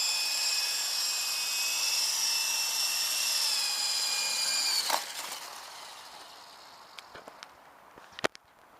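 Small electric radio-controlled toy helicopter's motor and rotor whining steadily at a high pitch, then dropping slightly and winding down about five seconds in. A few sharp clicks follow near the end.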